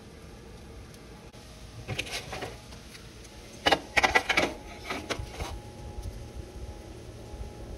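Metal baking sheet being handled at the oven: a brief scraping rattle about two seconds in, then a louder cluster of clatters and knocks around the middle, as of the tray sliding on the oven rack and being set down.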